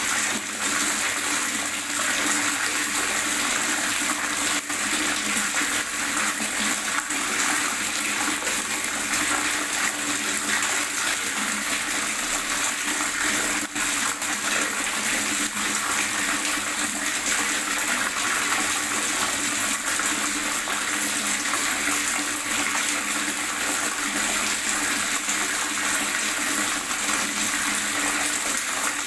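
Water gurgling steadily and without pause, a continuous bubbling, splashing wash.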